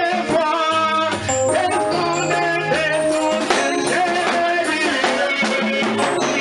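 Worship music: a man singing into a microphone over instrumental backing with a low bass line and percussion.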